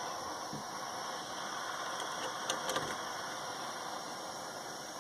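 Soldering torch flame hissing steadily as a brass shower valve is sweat-soldered to copper pipe, with two light ticks about halfway through.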